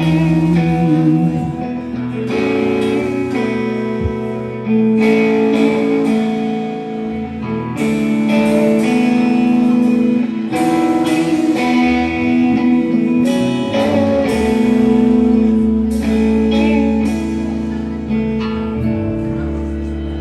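Live band playing an instrumental guitar-led passage between sung verses, with sustained guitar notes and chords over the band.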